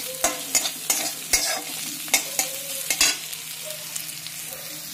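Metal spatula scraping and clacking against a metal kadhai as chopped garlic, ginger and green chillies are stirred, sizzling in hot oil. The stirring stops about three seconds in, leaving a steady sizzle.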